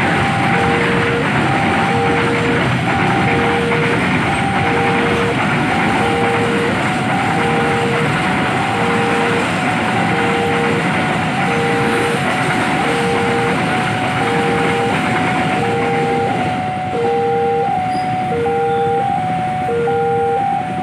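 Container freight train rolling through a level crossing, its wheels running loud and steady over the rails. Over it the crossing's warning alarm sounds a two-tone beep about once a second, and a higher beep joins in near the end.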